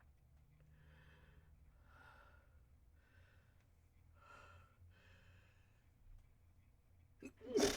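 A person's breathy, catching breaths, about five of them roughly a second apart, build up to a sneeze. Near the end it comes out as one short, sharp, stifled sneeze, the loudest sound here.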